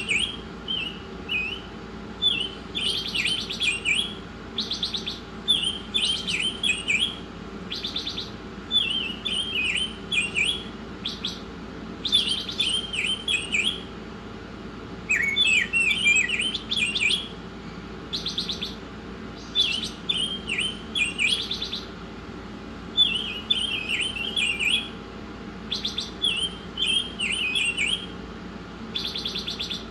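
Pancawarna songbird singing steadily in short, rapid twittering phrases, one roughly every two seconds, with sharp high notes over the trills. A steady low hum runs underneath.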